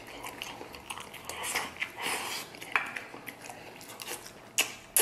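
Close-up mouth sounds of a man eating: biting and chewing a mouthful of food, with a few sharp clicks, the loudest near the end.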